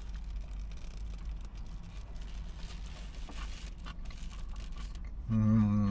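A man chewing a big mouthful of burrito with his mouth closed, over a steady low hum in the car cabin. About five seconds in he gives a short hummed 'mmm' of enjoyment.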